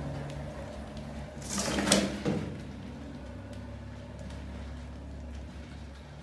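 Cardboard tipping lid of a bucket rat trap swinging down and a rat dropping into the plastic bucket: a brief clatter about two seconds in, with a sharp knock and a smaller second knock just after, over a steady low hum.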